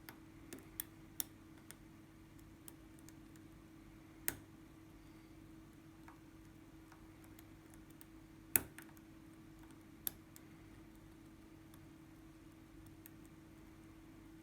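Scattered sharp metallic clicks and ticks of lock picks working inside an ASSA Twin 6000 lock whose driver pins are already set, the loudest about four and eight and a half seconds in. A faint steady hum runs underneath.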